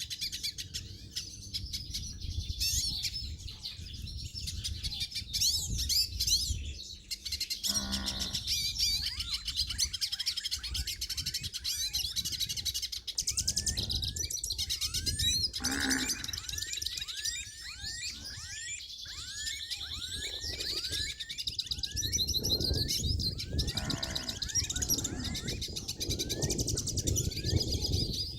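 Many wild birds chirping and singing together, a dense chorus of high twittering and short repeated rising notes. Twice, about 8 and 16 seconds in, a brief lower animal call sounds over it, with a steady low rumble underneath.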